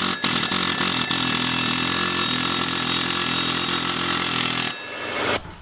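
Pneumatic air hammer hammering steadily on a seized flywheel bolt, then cutting off abruptly near the end.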